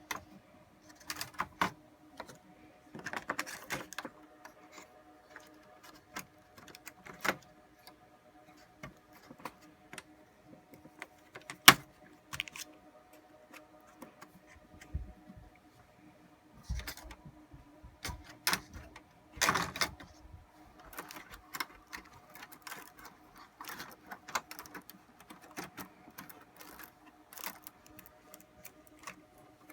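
Scattered clicks, taps and knocks of metal and plastic parts being handled and fitted into a rack server's chassis, with one sharp click about twelve seconds in the loudest. A faint steady hum runs underneath.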